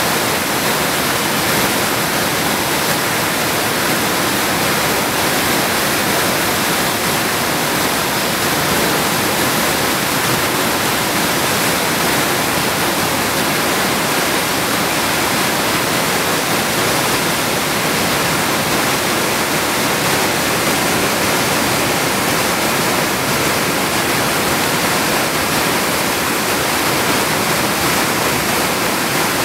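Rushing creek water pouring through whitewater rapids over rocks: a loud, steady, unbroken rush.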